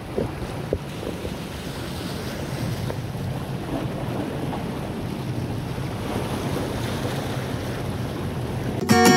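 Wind buffeting the microphone over small waves washing on the shore: a steady rushing noise. Just before the end, strummed guitar music comes in.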